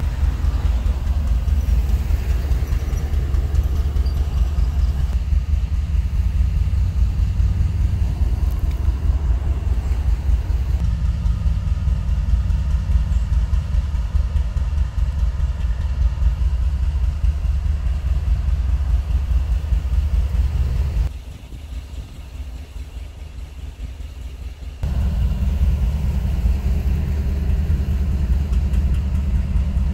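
Diesel locomotives of a freight train running, a loud steady low rumble that drops away for a few seconds about two-thirds of the way through and then comes back.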